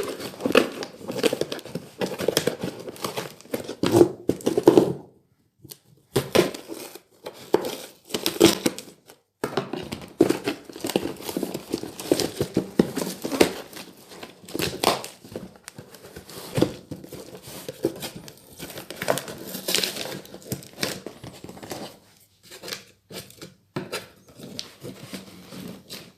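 Packaging being torn and crinkled by hand in irregular bursts, with a short pause about five seconds in.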